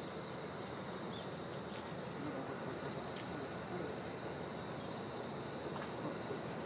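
Open-countryside ambience: a steady low rush with a thin, high, broken tone running through it, as from distant birds or insects.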